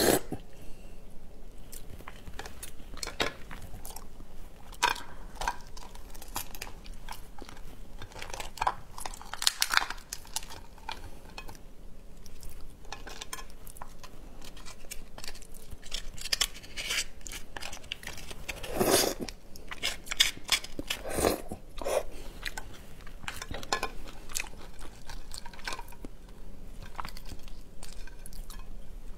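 Close-miked eating of crab: chewing and biting, with irregular crunches and cracks of crab shell being broken apart by hand. Two louder cracks come about two-thirds of the way through.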